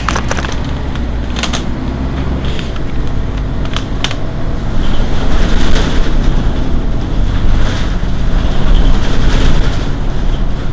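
Mercedes-Benz Citaro city bus engine idling, heard from just behind the bus, with a steady low rumble. It grows louder about halfway through, and there are a few sharp clicks in the first few seconds.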